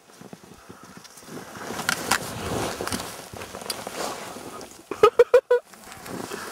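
Skis sliding fast over snow with wind rushing past the skier's camera, a steady hiss that builds from about a second in. About five seconds in a person's voice gives a short, loud burst.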